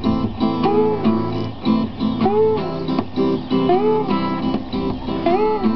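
An acoustic guitar and a small second string instrument played together in a loose, rhythmic jam. A note bends up and back down about every second and a half.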